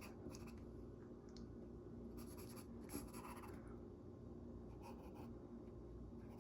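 Faint scratching strokes of a drawing tool on paper, sketching in short bursts with pauses between.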